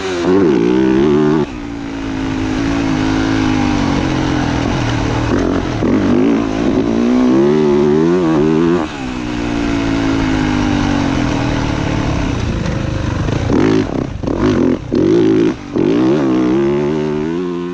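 Motocross dirt bike engine revving hard on a lap of the track, its pitch climbing and falling again and again with throttle and gear changes. Near the end the engine note breaks off briefly several times.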